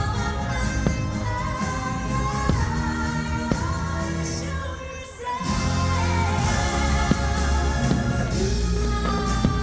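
Pop music with a singing voice and a steady beat. It thins out and drops briefly about halfway, then comes back in with heavy bass.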